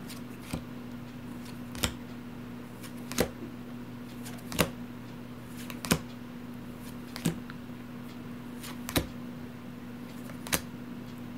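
Board game cards being set down one at a time on a table, a short sharp snap about every second and a half, eight in all, over a steady low electrical hum.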